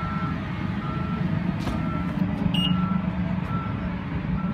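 BMW X6 power tailgate closing: its warning chime beeps steadily about once a second over a low hum, with one sharp click partway through.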